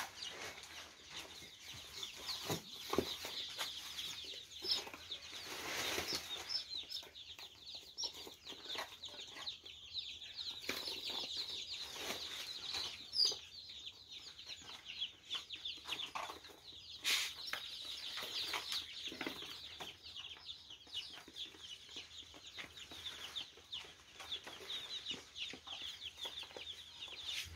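A flock of day-old broiler chicks peeping continuously, a dense chorus of short high cheeps, with a few brief knocks from handling.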